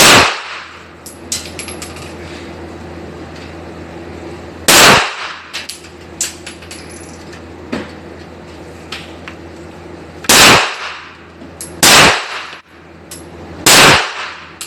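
Five single gunshots fired at uneven intervals, each trailing off briefly: one at the start, one about five seconds in, then three closer together in the last few seconds. Faint small clicks sound between the shots.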